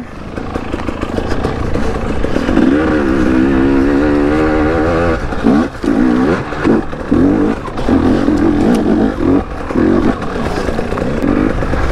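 KTM 250 two-stroke enduro bike engine under throttle on rough ground. The revs waver up and down at first, then come as a string of short throttle blips with brief drops between them in the second half.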